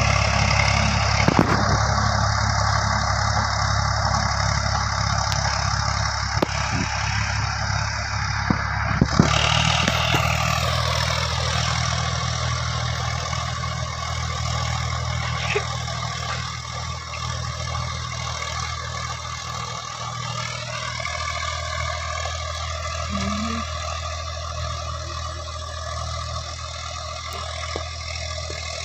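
Old tractor engine running steadily, with a few sharp knocks in the first nine seconds; about nine seconds in it changes abruptly and settles lower, then its pitch glides briefly down and later back up.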